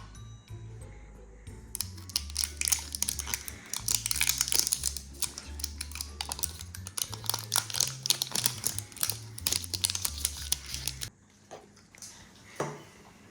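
Rapid crinkling and rustling of a surprise ball's wrapping being torn and unwrapped, over background music with a low bass line. Both stop abruptly about eleven seconds in, and one short sound follows near the end.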